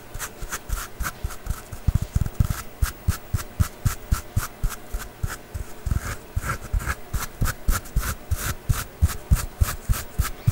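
Scratching on a hard surface as an ASMR trigger: quick repeated scraping strokes, about three or four a second, in a steady rhythm.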